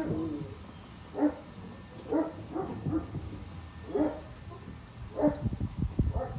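Dog barking repeatedly, short single barks spaced about half a second to a second apart, with a few dull thumps near the end.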